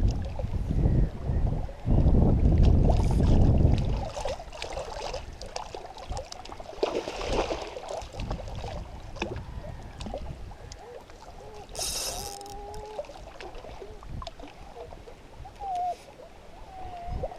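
Water sloshing and splashing around a small rowboat while a hooked pike is played on the line, with a heavy low rumble for the first four seconds and a short splash about twelve seconds in.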